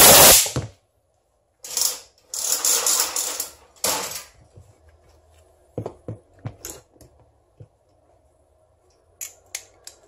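Cordless hammer drill being taken apart by hand: a screwdriver scraping and prying at the red plastic housing parts in several harsh rasps, loudest at the start, then scattered clicks and knocks of plastic and metal parts being handled.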